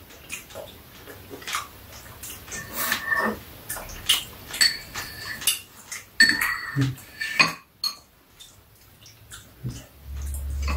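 Metal spoons and chopsticks clinking and scraping against ceramic bowls while eating, many short clicks with a few that ring briefly. A low rumble comes in near the end.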